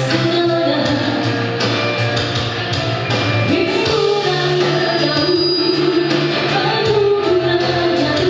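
A woman singing into a handheld microphone over backing music, holding long notes, with the longest held from about halfway through to the end.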